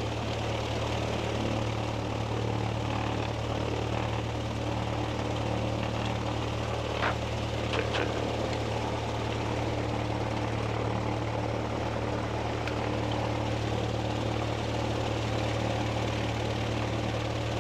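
Light single-engine piston airplane's engine and propeller running steadily, a constant low drone heard from inside the cockpit, with a couple of faint ticks about halfway through.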